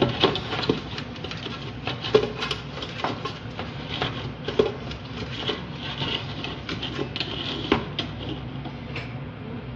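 Hand rubbing oil around the inside of a dark metal baking pan to grease it: irregular scraping and rubbing with light knocks of the pan, over a steady low hum.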